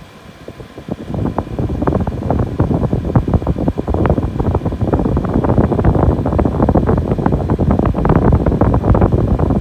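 Air blown from a Whirlpool PACW9COL portable air conditioner's outlet buffeting the microphone: loud, gusty wind noise that sets in about a second in, over the unit's steady fan hum.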